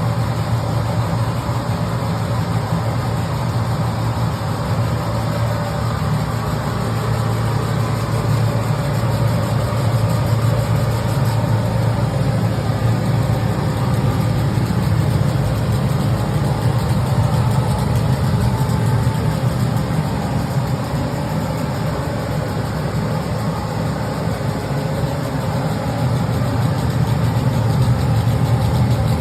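A machine running with a steady low hum, a little louder near the end.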